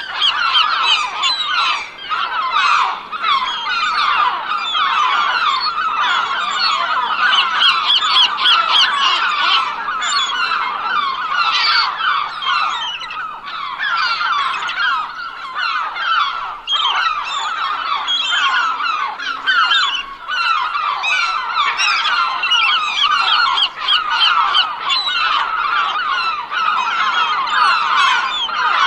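A flock of gulls calling nonstop, many squawking cries overlapping one another.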